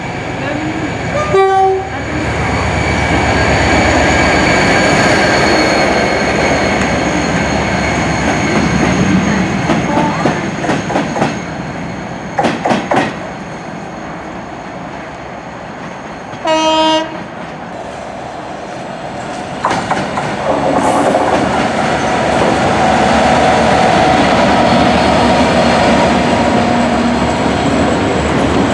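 A Class 57 diesel locomotive runs through the station hauling Class 55 Deltic 55009. A horn sounds as it comes in, and again about 17 seconds in, with wheel clicks in between. From about 20 seconds in, a pair of Class 66 diesel locomotives passes hauling a train of tank wagons.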